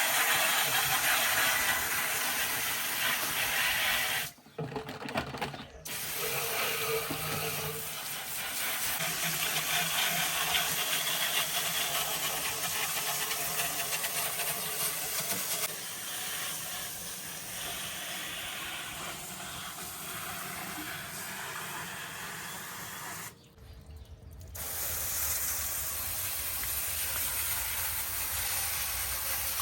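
Steady hiss of running or spraying water, broken off twice briefly.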